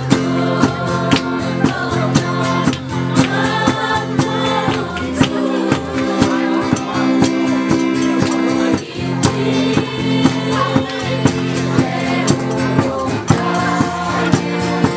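Group singing, choir-like, over music with a steady percussive beat and held low chords.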